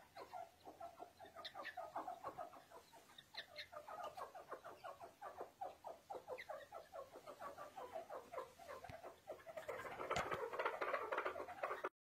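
Grey francolin chicks peeping: a rapid, continuous run of short, falling chirps, several a second, getting louder and denser for the last two seconds.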